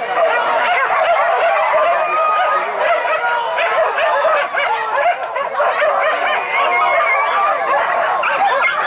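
A pack of boar-hunting dogs yelping and barking all at once, many voices overlapping in an unbroken, excited chorus.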